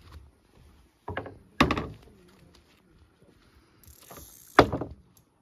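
Fishing reel's loosened drag ratcheting in two bursts, about a second in and near the end, as a hooked fish pulls line off the reel while it is played on a bent carp rod.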